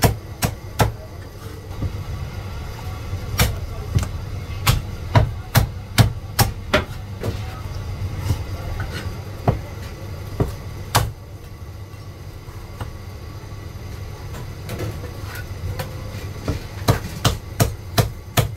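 Chinese cleaver chopping roast poultry through skin and bone on a thick wooden chopping block. The sharp chops come irregularly: a quick run about three to seven seconds in, a few scattered ones, then another quick run near the end. A steady low hum sits underneath.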